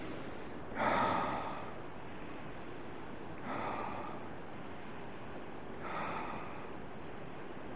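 A man taking three slow, deep, audible breaths about two and a half seconds apart, the first the loudest, over the steady rush of a creek.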